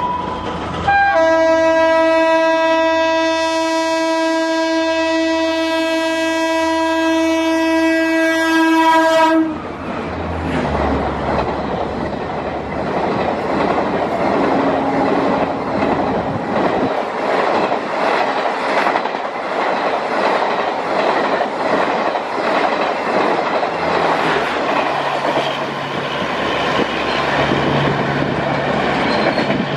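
Express train's locomotive horn sounding one long single-tone blast, briefly broken just after it starts, for about nine seconds as the train approaches. Then the Darshan AC Express's coaches rush past at full speed, with a steady rushing noise and rapid clickety-clack of wheels over the rail joints.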